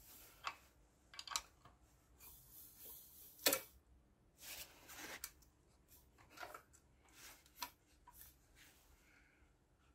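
Faint, scattered clicks and rustles of hands handling the cam chain and camshaft sprockets on a Kawasaki KZ1100 cylinder head, with one sharper click about three and a half seconds in.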